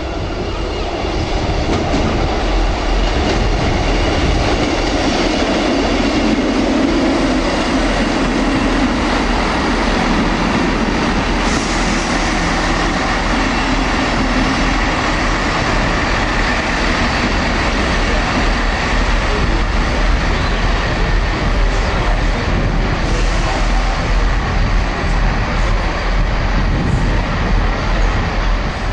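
Class 158 diesel multiple unit running close past on the track, with its diesel engine and wheels on the rails both audible, and a steady high whine through the middle.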